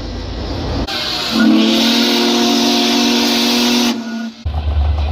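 A train horn sounds one steady multi-note chord for about three seconds, with a loud hiss over most of it. It starts and stops abruptly, and a deep engine rumble comes in near the end.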